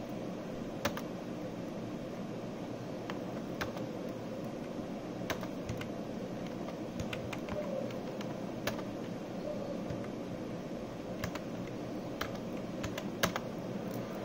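Computer mouse clicking a dozen or so times at irregular intervals, single sharp clicks with the loudest about a second in and near the end, over a steady low hum.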